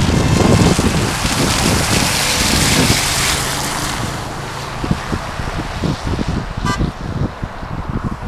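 A Dodge SUV drives past on the wet, slushy road, its tyre and engine noise swelling and then fading by about four seconds in. Wind buffets the microphone throughout, in irregular gusts. A brief high tone sounds near the end.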